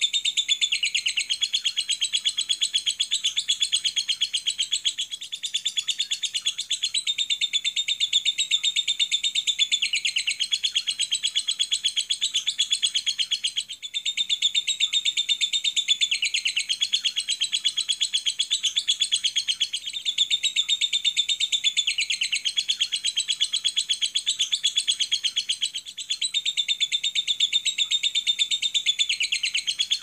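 Lovebird singing a long, rapid, high-pitched chattering song (the 'ngekek panjang' used as a masteran to draw other lovebirds into song), broken only by three brief pauses.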